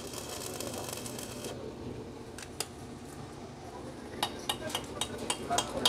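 Stick welding on a refrigerator compressor's steel shell: the arc crackles steadily and cuts off about a second and a half in. From about four seconds in, a chipping hammer knocks slag off the fresh weld in quick, light metallic taps, about four a second.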